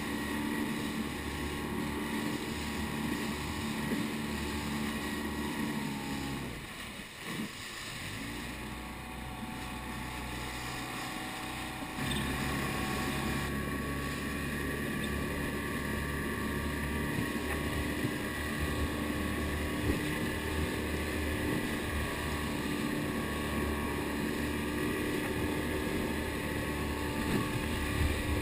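Outboard motor of an inflatable chase boat running under way. The engine eases off and dips in level about seven seconds in, then steps back up sharply about twelve seconds in and runs steadily again.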